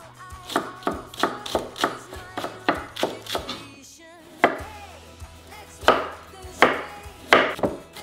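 Kitchen knife chopping on a wooden cutting board: a quick, even run of strokes through green onion, then a short pause about halfway and a few louder, slower chops through carrot. Soft background music plays underneath.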